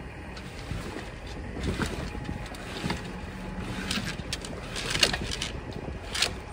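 Mainsail being hoisted on a sailboat's mast: sailcloth rustling and flapping as the halyard is hauled, with several sharp clatters of rigging, the loudest about five and six seconds in, over steady wind rumble.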